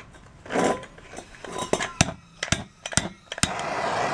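A few sharp metallic clicks, then a handheld gas torch catches and burns with a steady hiss starting near the end.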